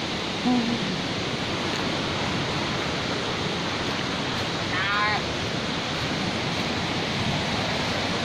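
Steady rush of a mountain stream and waterfall. A short low sound comes half a second in, and a brief chirping trill about five seconds in.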